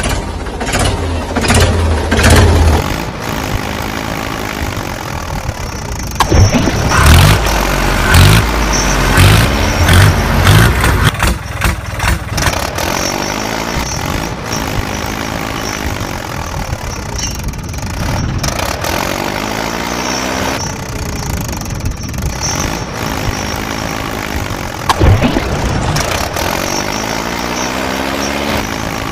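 Tractor engine sound running and revving, the same rev cycle repeating every few seconds like a looped sound effect.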